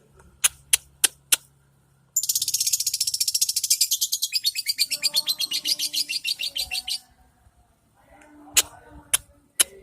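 Female lovebird chirping sharply a few times, then going into a long, fast chattering trill (its 'ngekek') lasting about five seconds, followed by a few more single chirps.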